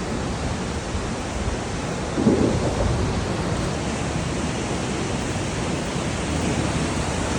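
Steady rain falling, a constant rushing hiss with a low rumble underneath. A faint voice is heard briefly about two seconds in.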